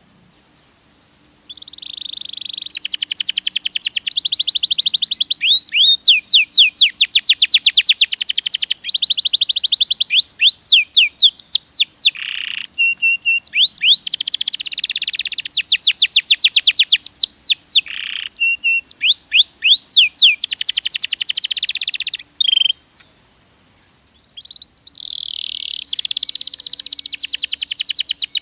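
Domestic canary singing a long, loud song of rapid trills. Each phrase is a fast run of one repeated note and switches to a new note type every second or two. There are short pauses about a second in and again about three-quarters of the way through.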